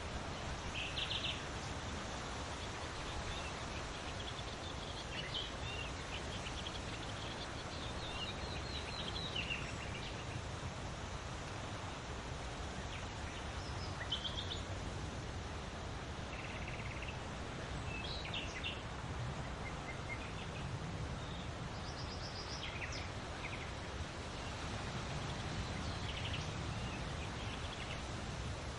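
Wind blowing steadily, a constant rushing noise heaviest in the low end. Birds give short chirping calls every few seconds over it.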